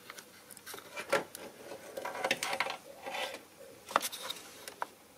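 Multimeter probe tips scraping and rubbing as they are worked into the pins of an engine wiring-harness connector, with a few small, sharp clicks along the way.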